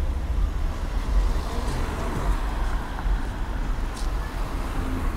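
City street traffic noise: cars idling and creeping in slow traffic, with a steady low rumble and no sharp revs.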